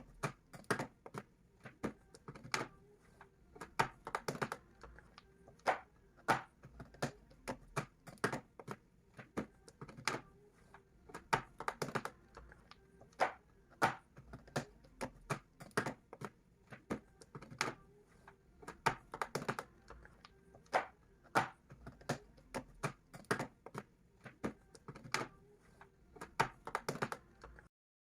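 Raindrops dripping onto a hard surface: irregular sharp taps, a few a second, over a faint background. The sound cuts off abruptly near the end.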